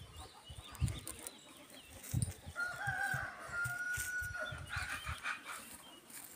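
A rooster crows once midway, a single long call held for about two seconds. Low, irregular dull thumps and faint small-bird chirps run alongside it.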